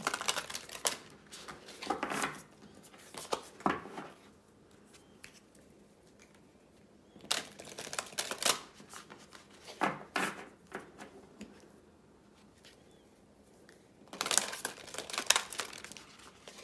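A deck of oracle cards being shuffled by hand, the card edges flicking and rustling in about six short bursts with quiet pauses between them; the longest burst comes near the end.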